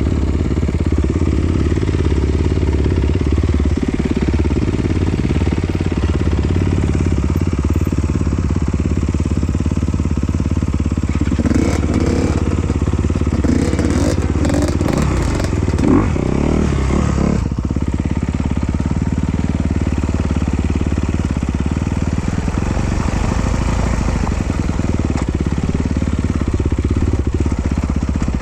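Trail motorcycle engine running at low, fairly steady revs while riding down a dirt descent. A stretch of louder clatter and rough noise comes in the middle, from about 11 to 17 seconds in.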